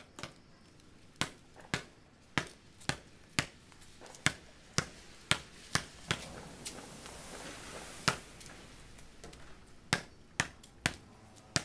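A basketball being dribbled on pavement: sharp bounces about two a second, pausing for a few seconds past the middle, then starting again.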